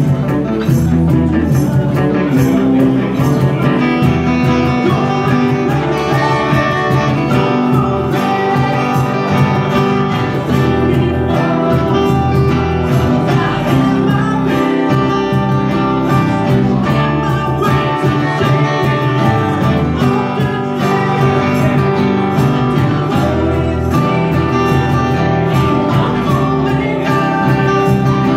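Live band playing a song on strummed acoustic guitars.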